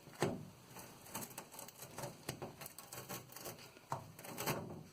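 Heavy-duty adhesive Velcro strip being peeled slowly off a perspex sheet, its hairdryer-softened adhesive letting go with faint, scattered crackles and ticks.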